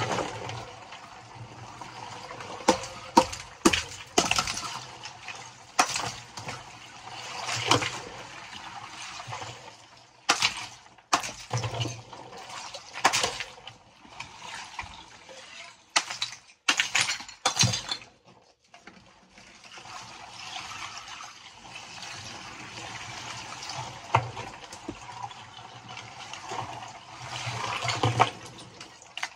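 A claw hammer strikes and chips big slabs of ice floating in a water-filled chest freezer, giving sharp, irregular knocks and cracks, several in quick clusters. Between the strikes, water sloshes and splashes as the slabs are moved.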